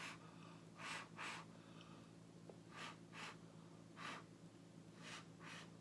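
Short puffs of breath blown onto wet acrylic pour paint, about seven quick puffs, mostly in pairs. The breath is pushing the poured paint outward across the canvas.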